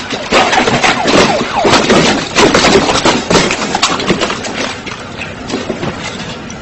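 Police sirens wailing, several overlapping with their pitch sweeping up and down, over rough crackling noise. They quieten after about four and a half seconds.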